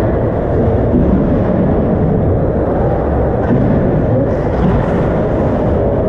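Steady low rumbling background noise of an ice hockey rink, with no single distinct event standing out.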